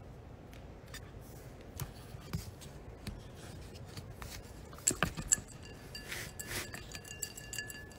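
Phone being handled and moved about: scattered taps, clicks and rubbing on its microphone, with a few louder knocks about five seconds in.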